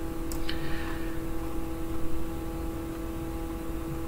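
Steady background hum, one constant tone with overtones, with two or three sharp clicks about half a second in.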